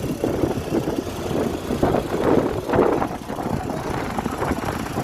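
A motor vehicle running on the road, a steady rumble of engine and road noise with a few louder swells midway.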